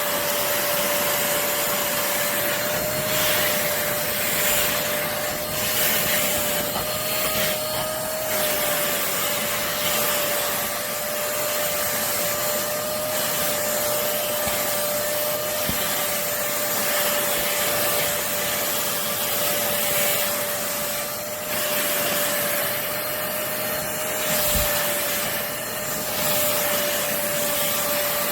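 Corded stick vacuum cleaner with a 400 W motor running steadily: a constant high whine over a rushing hiss of suction, with small rises and dips in level as the head is worked over the floor.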